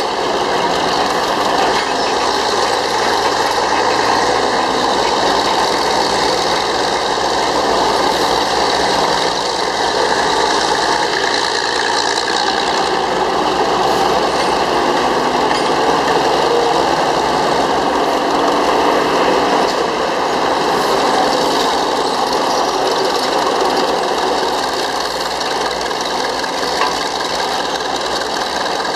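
Northwest Model 6 cable shovel's diesel engine running steadily under load as the machine digs and swings.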